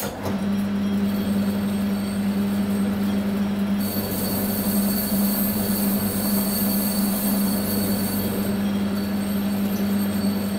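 Warco WMT800 lathe-mill combo switched on, running with a steady low hum and whine from its motor and gearing while turning the outer diameter of a large aluminium billet. A higher hiss joins about four seconds in.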